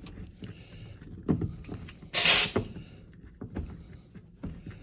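Knocks and clicks of hardware being handled, with one short, loud hiss of compressed air about two seconds in, like an air-hose coupler or air impact wrench letting off air.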